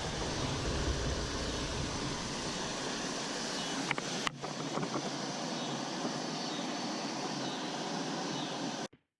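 Steady rush of flowing creek water, with a couple of sharp clicks about four seconds in; it cuts off suddenly near the end.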